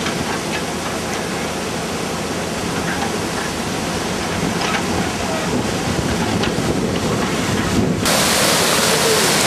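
Muddy floodwater rushing down a rain-swollen channel as a steady rush of water. About eight seconds in it cuts to a louder, brighter rush.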